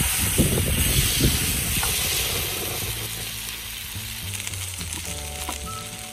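Marinated horumon (offal) sizzling loudly as it lands in a hot frying pan on a portable gas cartridge stove. The sizzle slowly dies down as the pan cools under the fresh meat.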